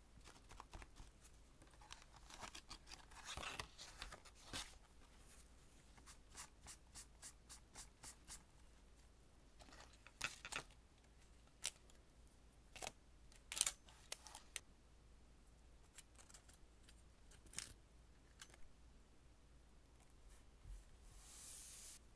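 Quiet desk handling of paper and washi tape rolls: scattered light clicks and taps as the rolls and other small supplies are picked up and set down. There is a longer stretch of paper rustling a few seconds in and a short hiss near the end.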